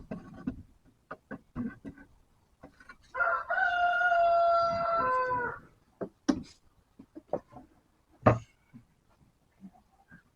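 A rooster crowing once, a long call of about two and a half seconds that drops in pitch at the end. Scattered sharp knocks and taps come before and after it, the loudest a few seconds after the crow.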